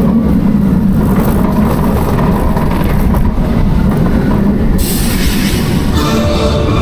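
Penguin Trek roller coaster train running along its track with a loud, steady rumble of wheels on rail. About five seconds in, a sharp hiss joins the rumble, and near the end music starts up over it.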